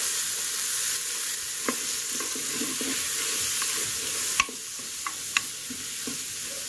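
Green peas, onion and butter sizzling in an Instant Pot's inner pot while a wooden spoon stirs them, knocking against the pot a few times. The loudest knock comes about four seconds in.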